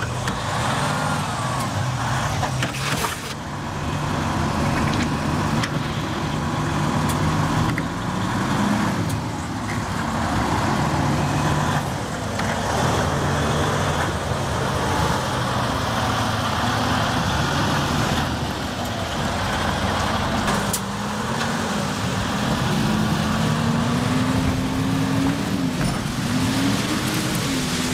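Truck engine running under load, its pitch climbing and dipping several times in the last third as a pickup tows a semi tractor-trailer out of mud with a tow strap.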